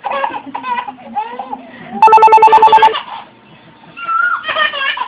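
Laughing voices, broken about two seconds in by a loud telephone ring: a rapid, even trill of pulses on two steady pitches lasting about a second. More laughing follows near the end.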